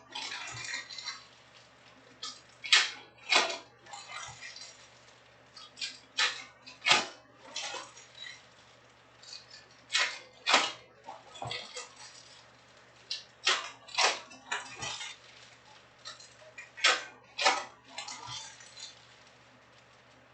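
Foil trading-card pack wrappers being torn open one after another: pairs of sharp crinkling rips about half a second apart, repeating every three to four seconds, with paper-and-foil rustling in between.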